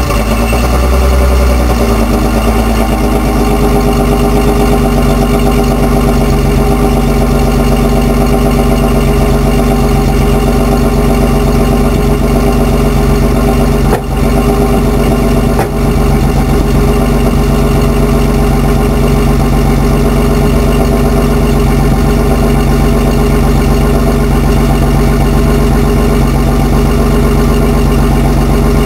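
1986 BMW 525e's straight-six engine idling, just after starting: the low surge of the start settles within the first second or two, then the idle runs steady.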